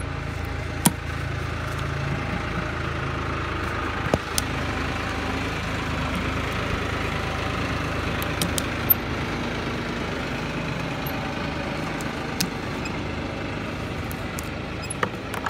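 A motor vehicle engine idling steadily, with a few sharp clicks over it.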